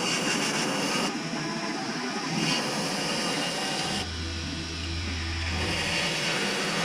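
Handheld power tool grinding into a jerry can mount, in several short clips cut together, with a low steady hum in the middle stretch.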